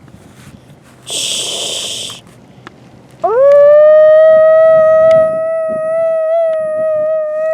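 A long howl: a single loud note that sweeps up quickly about three seconds in and is then held steady until near the end. A brief hiss comes about a second in.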